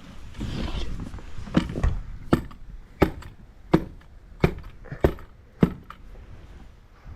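Stamp mats being tamped down into fresh concrete: a run of about eight sharp thuds, roughly one every two-thirds of a second, starting about a second and a half in.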